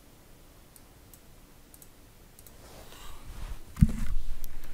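A few sharp clicks of a computer mouse, with a single dull thump on the desk about four seconds in.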